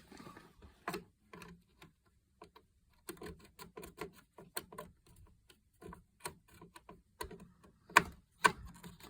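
Irregular clicks and small knocks of a RAM module being pushed and worked into a Power Mac G5 Quad's memory slot, with two sharper clicks near the end.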